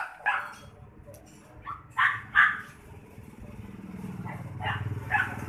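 A dog barking in short, repeated barks, the loudest two about two seconds in. A low engine hum builds underneath in the second half.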